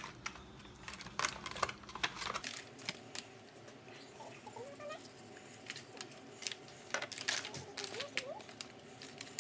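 Hands rubbing seasoning into raw chicken wings in a disposable aluminium foil pan: irregular squishing of the meat with crinkling and clicking of the thin foil tray. The handling comes in two clusters, with a quieter pause in the middle.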